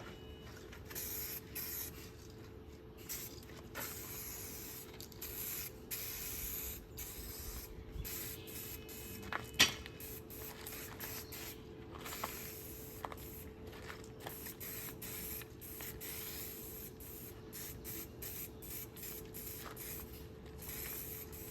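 Aerosol spray can hissing in repeated short passes, paint being sprayed onto trim pieces. One sharp click comes about nine and a half seconds in.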